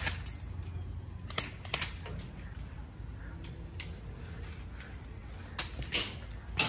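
Airsoft guns firing in single, scattered shots, with plastic BBs snapping against hard surfaces: about eight sharp pops spaced irregularly, over a low steady rumble.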